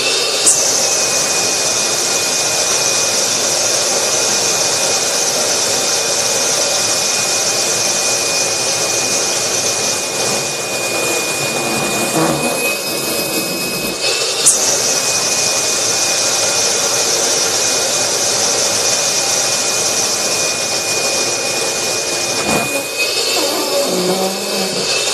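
Vacuum cleaner running steadily with a high whistle of rushing air. Its sound shifts several times as T-shirts are drawn into the nozzle and choke the airflow. There is a sharp click about half a second in and again about halfway through.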